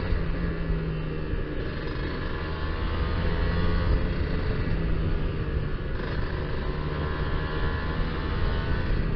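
Kawasaki Ninja R 150 cc two-stroke single-cylinder motorcycle engine running at fairly steady revs while riding, with wind rush on the microphone.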